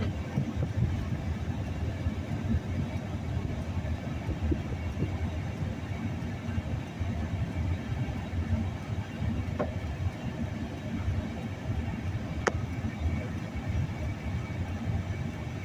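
Steady low rumble of a vehicle, with two small sharp clicks a few seconds apart past the middle.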